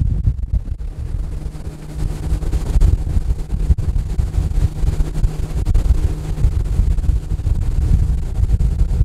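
Heavy wind buffeting the microphone as a fishing boat runs at speed, with the steady hum of its motor underneath.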